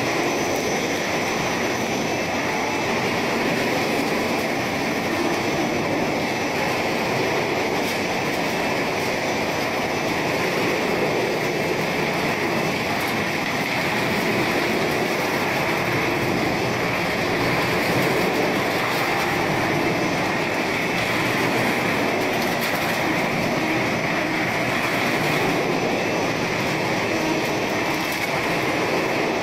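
Snack chip production line machinery running: dough-sheeting rollers, cutter and conveyors make a steady, unbroken machine noise.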